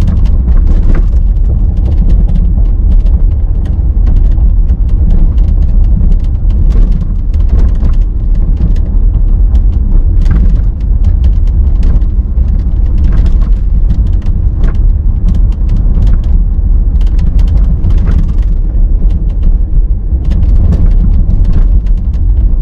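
Steady low road rumble inside the cabin of a BMW X5 F15 on a rough road, with many short creaks and clicks from the body and interior trim. The creaking is the fault the owner complains of in a car with only 40,000 km.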